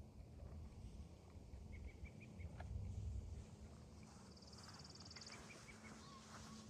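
Quiet outdoor ambience: a low rumble of wind with a few faint bird chirps in short runs, and a brief, rapid high trill about four seconds in.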